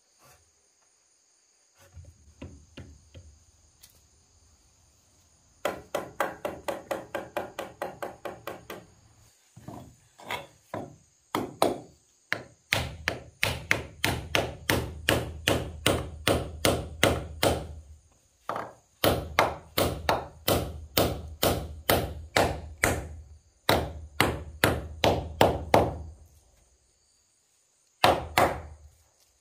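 Rapid, repeated strikes of a tool on wood, in runs of several seconds: very fast at first, then about two to three blows a second, with short pauses between runs. A steady high insect drone sits behind them.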